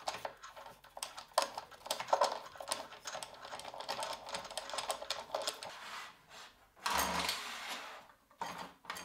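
Fast, irregular clicking and rattling of small metal parts as the clamping handles are screwed down onto T-bolts to fix an aluminium router-table fence. About seven seconds in there is a brief louder scrape as the fence is moved on the table top.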